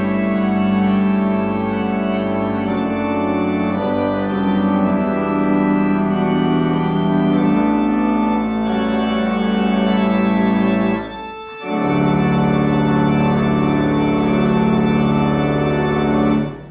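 Church pipe organ playing sustained full chords, with a brief break about eleven seconds in, then a final held chord that cuts off just before the end.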